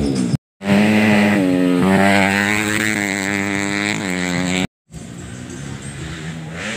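Motocross dirt bike engines running, holding a steady pitch with a few sudden shifts, broken twice by short total silences. After the second gap the engine sound is quieter.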